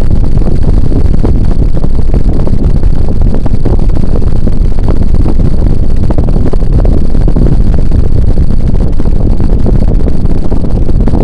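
Mastercraft 48-inch ceiling fan running, its downdraft buffeting the microphone in a loud, steady low rumble.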